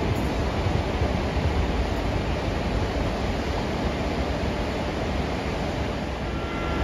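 A freight train's covered goods wagons rolling past at speed: a steady rushing rumble of wheels on the rails, heaviest in the low end, with no horn or separate clanks.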